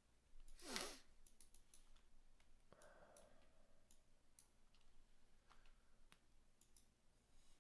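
Faint, scattered clicks of a computer keyboard and mouse as numbers are typed into on-screen fields, with a short breath just under a second in.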